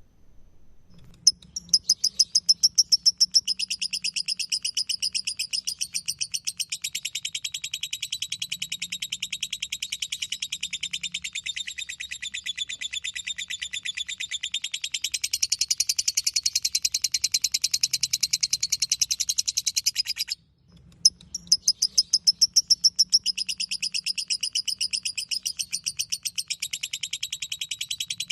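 Lovebird ngekek: a long, very rapid, even trilling chatter, starting about a second in. It breaks off for under a second about twenty seconds in, then starts again.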